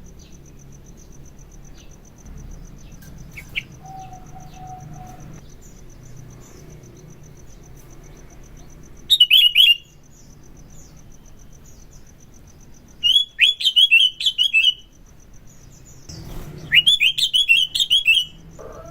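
Sooty-headed bulbul (kutilang) singing in three loud bursts of quick, chattering notes: one about halfway through, then two longer phrases near the end.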